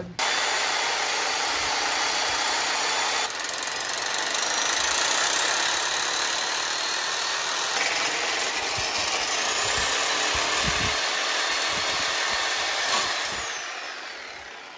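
Reciprocating saw running steadily, its blade cutting into a stripped, rusted turbo-to-downpipe bolt. The sound fades out over the last two seconds.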